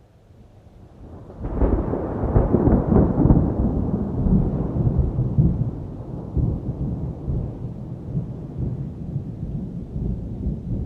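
A thunderclap: a low rumble swells in, breaks into a sharp crackling crack about a second and a half in, then rolls on as a long low rumble that slowly fades.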